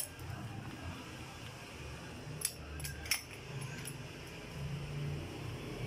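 Socket wrench on a long extension working the cylinder-head bolts of an AKT NKD motorcycle engine: two sharp metal clicks about two and a half and three seconds in, over a low, uneven rumble.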